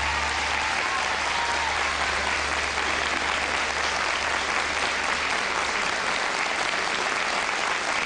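Studio audience applauding, dense and steady throughout, with a low hum underneath that fades out about six seconds in.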